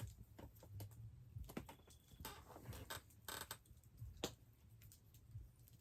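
Faint clicks and short scrapes of a sharp knife being worked on an extension cord wire, stripping back its insulation.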